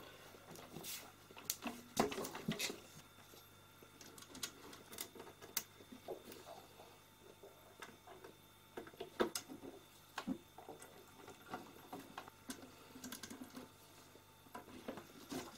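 The cover and case of a Unitra ZRK M8047 cassette deck being fitted and handled: scattered light clicks, taps and scrapes. A sharper knock comes about two seconds in, another around nine seconds.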